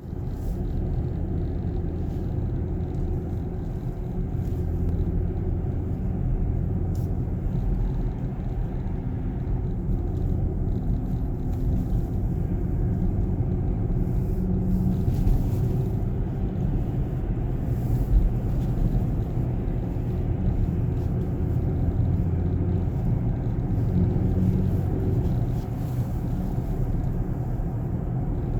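Range Rover Velar on the move: a steady low rumble of road and engine noise, with a few faint clicks now and then that come from a door, the clicking fault in question.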